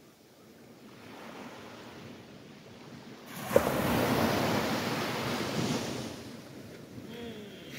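Small waves breaking on the beach in a calm sea: quiet at first, then about three and a half seconds in a wave breaks with a sudden rush and a short sharp click, and the wash runs on for a couple of seconds before fading.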